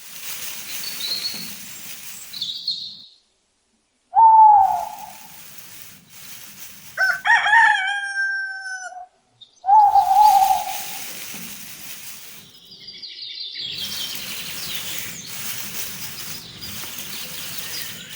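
A rooster crowing: one long call about seven seconds in, with shorter calls around four and ten seconds in. Small birds chirp in between and in the later part. The sound cuts out briefly twice, as at edits.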